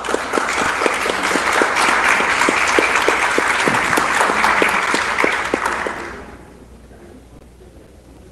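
Audience applauding, with one person's sharper claps standing out close to the microphone; the applause dies away about six seconds in.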